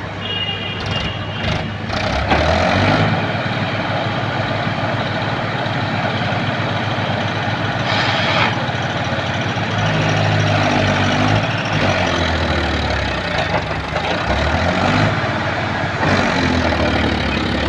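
Heavy diesel engine of a backhoe loader running, revving up and down in several surges as it works under load.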